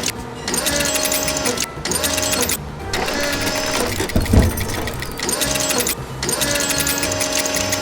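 Cartoon machine sound effect: very fast mechanical clicking with a steady hum, in stretches of one to three seconds broken by short pauses, with a low thump about four seconds in.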